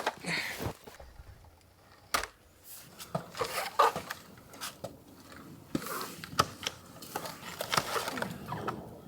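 Scattered knocks and clicks from an extension ladder being extended and handled, with faint voices in the background.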